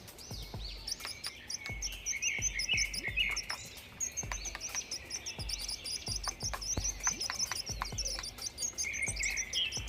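Small birds chirping and trilling in quick repeated notes, with faint irregular clicks and low thumps underneath.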